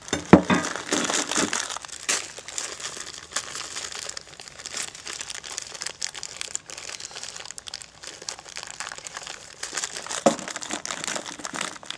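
Clear plastic bag of nuts and bolts crinkling and rustling as it is handled and rummaged through. A sharp knock comes just after the start and a lighter one about ten seconds in.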